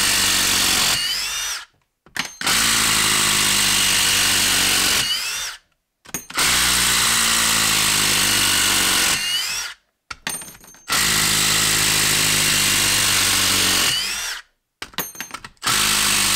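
Milwaukee 1/4-inch impact driver hammering lag screws into a log, one after another: five runs of about three seconds each, split by short pauses. Each run ends with a brief rising whine, and small clicks fall in the gaps as the next screw is set.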